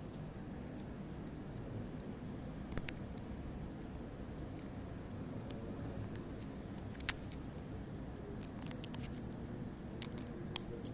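Handling of a foil-wrapped lithium-polymer phone battery and its small circuit board: scattered sharp crinkles and clicks, a few about three seconds in, several around seven to nine seconds and two more near the end, over a steady low background hum.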